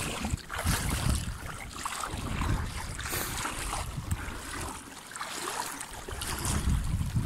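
Shallow river water sloshing and swirling around a person's boots as they wade, with wind buffeting the microphone.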